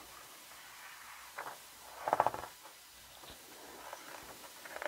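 Thick pages of a photo book being turned by hand: a few faint paper rustles and slides, the loudest about two seconds in.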